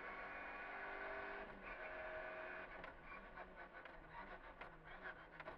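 Rally car engine heard from inside the cabin, running steadily and then changing note about a second and a half in as the car slows for a chicane. From about halfway on come many short, sharp clicks and knocks.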